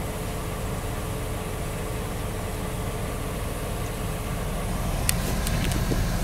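Steady engine and road rumble heard inside the cab of a Vandura van driving slowly. A few sharp clicks come about five seconds in.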